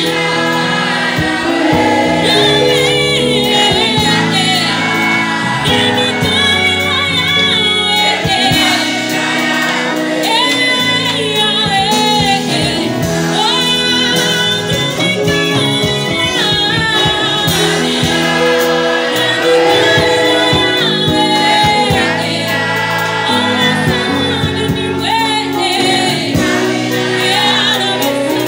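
Live gospel worship music: a woman singing lead into a microphone over a live band with drum kit and keyboard, with other voices singing along like a choir.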